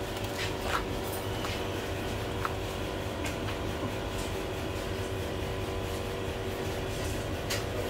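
Steady mechanical background hum: a low rumble with several faint steady tones and a few light clicks, typical of a shop's refrigeration and ventilation.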